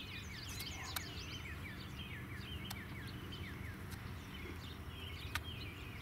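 Small songbirds chirping and singing in the background, many short quick notes repeated throughout, over a steady low outdoor rumble.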